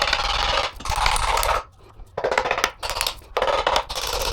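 A metal tool working at an Audi EA839 engine's sump to pry it loose: metallic scraping and clinking in three bursts of about a second each.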